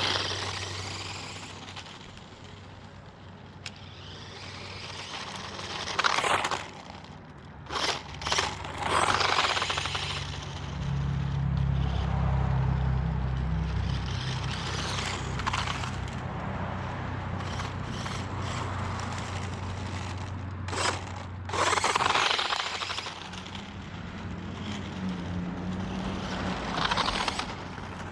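Small 1:18-scale electric RC truck driving over rough ground on an over-volted 7.4 V battery. Its motor and gears run steadily, with several louder bursts of rattling and scraping as it bounces over the terrain.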